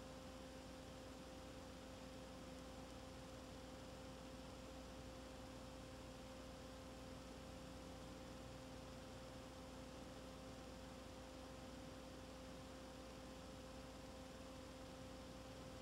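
Near silence: a steady electrical hum with faint hiss, unchanging throughout.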